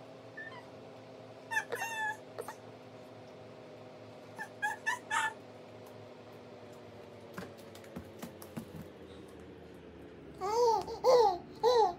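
Baby babbling in short, high-pitched sounds: a few quiet ones about 2 and 5 seconds in, then a louder run of four near the end.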